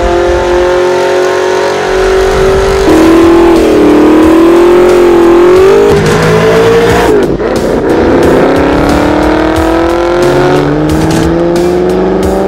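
Gen6 Chevrolet Camaro's 6.2-litre V8 through an AWE straight-through stainless performance exhaust, revving hard under acceleration. The engine note holds steady, then climbs, drops back at a shift about seven seconds in, and climbs again.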